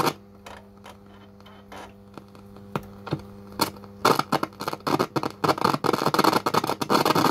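Old Sharp radio-cassette boombox, freshly powered from the mains, giving out a steady hum with scattered clicks. From about four seconds in it breaks into loud, scratchy crackling while its controls are worked, which the owner calls "rột rẹt".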